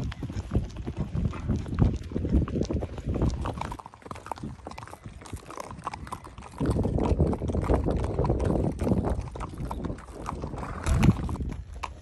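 Hooves of shod Criollo horses clip-clopping along a trail, with iron shoes on all four feet, in a steady run of irregular knocks. A low rumble comes and goes under the hoofbeats, in two long stretches.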